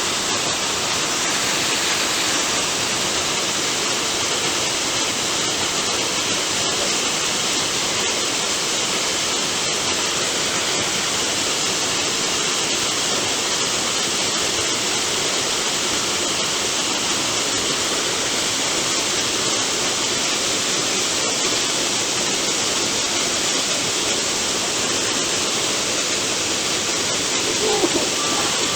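A waterfall rushing steadily, a loud, even wash of falling water.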